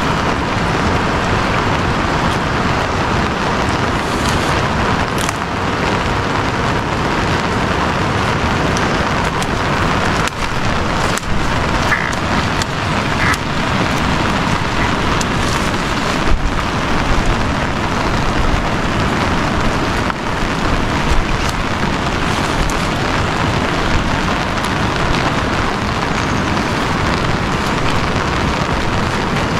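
A steady, loud rushing noise, with a few faint snaps and rustles of dry branches being broken and gathered.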